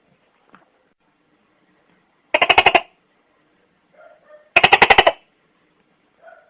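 Tokay gecko giving its rattling lead-in to the 'to-kay' call: two short bursts of rapid, loud clicks, each about half a second long, the first about two seconds in and the second about two seconds later.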